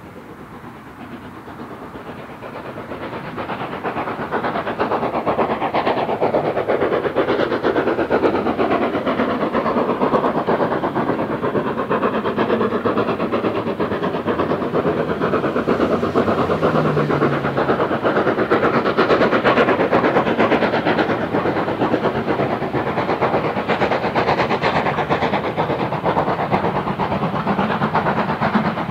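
LSWR S15 4-6-0 steam locomotive No. 506 passing under steam. Its rapid exhaust chuffing and the running of its train grow louder over the first few seconds as it approaches, then hold steady as the coaches roll by.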